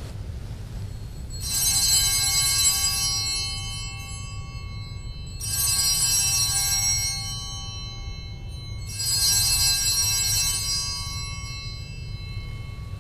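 Altar bells (Sanctus bells) rung three times, each a jingling ring of several small bells that fades after about two seconds, marking the elevation at the consecration.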